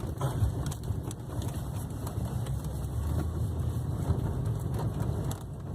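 Steady low rumble of a vehicle's engine and tyres, heard from inside the moving vehicle's cabin.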